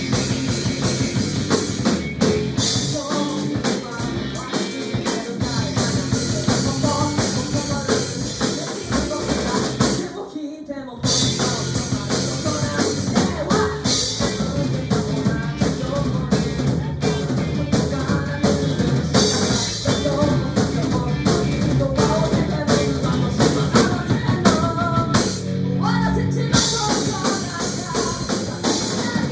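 A live rock band playing a song driven by a drum kit, with vocals. The band stops dead for about half a second just before eleven seconds in, then crashes back in.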